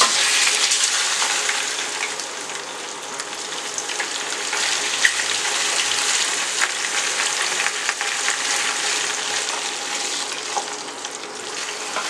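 Washed, still-wet beef liver pieces sizzling in hot oil in a stainless steel pot. The dense sizzle starts all at once as the liver hits the oil and carries on steadily. A wooden spoon stirs the pieces, giving a few light knocks.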